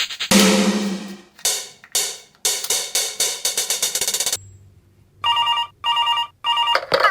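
Edited music and sound effects: a cymbal-like crash with a long decay, a fast rattling run of clicks, then after a short gap three short ringtone-like rings.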